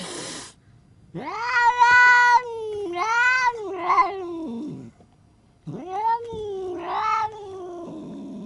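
Domestic cat yowling in two long stretches of drawn-out, wavering calls, the second starting a little past halfway; an angry cat's caterwaul.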